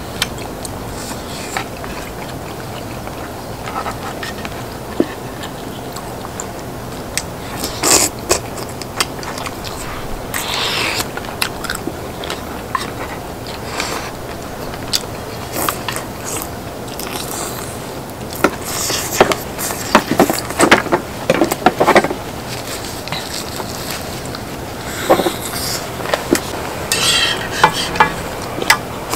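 Close-up eating: chewing and biting, with utensils scraping and clinking on a cast-iron cauldron-lid griddle in short irregular bursts over a steady background noise.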